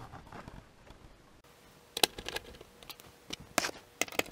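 Sharp clicks and light knocks of a screwdriver and metal bracket against the plastic back of a TV as the bracket is screwed on: a cluster about halfway through, then a few more near the end, with quiet handling between.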